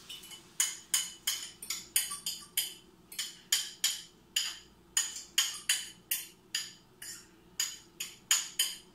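A fork beating eggs in a stainless steel saucepan, its tines striking the side of the pot in sharp metallic clinks, about two or three a second in an uneven rhythm.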